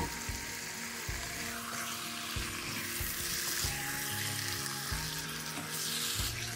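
Marinated chicken pieces sizzling in oil in a wok over medium-high heat, stirred and turned with a wooden spatula, with a few soft knocks of the spatula against the pan.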